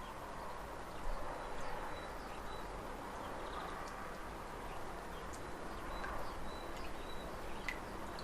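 Outdoor nature ambience sound file playing back: a steady background wash with short, high bird chirps and a few scattered clicks.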